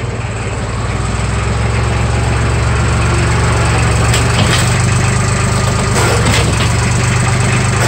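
Compact farm tractor engine running steadily, getting a little louder as the tractor drives up close. A few sharp knocks come between about four and six and a half seconds in.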